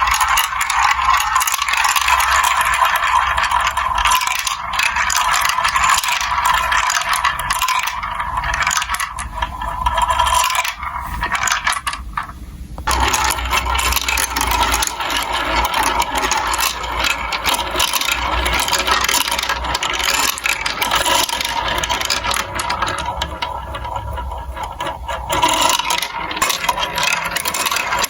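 Many marbles rolling, clicking and rattling down a plastic building-block marble run in a continuous clatter. The sound grows fuller and lower about halfway through.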